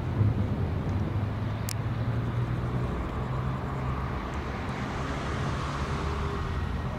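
Airbus A320neo jet engines running at taxi power as the airliner rolls past: a steady rumble with a low hum, the hiss swelling a little near the end. A brief sharp click comes about one and a half seconds in.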